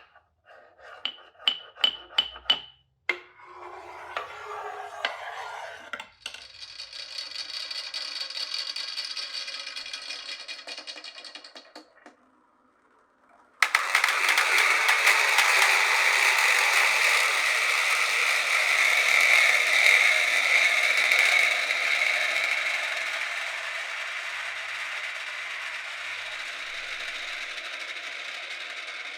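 Glass marbles running down a wooden marble run: a quick string of ringing clicks, then rolling along the track. After a short pause, a long continuous rolling rush starts halfway through and slowly fades.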